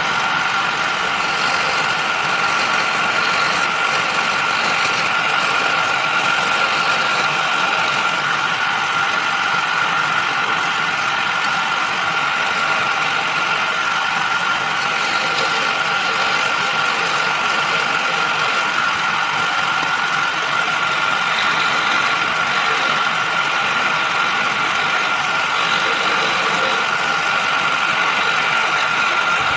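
Small benchtop wood lathe running steadily, spinning a wooden workpiece, its motor giving a steady whine.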